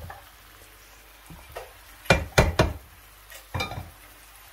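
Sharp knocks of kitchen utensils against the nonstick frying pan while powdered spices and a chicken stock cube are added to frying chicken: three quick knocks about two seconds in, then one more a second later, over a low sizzle.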